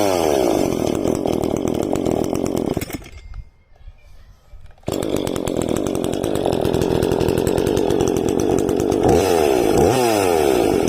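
Dolmar PS 420 C two-stroke chainsaw running steadily. About three seconds in, it drops away for nearly two seconds and comes back in abruptly. Near the end the engine revs up and falls back twice.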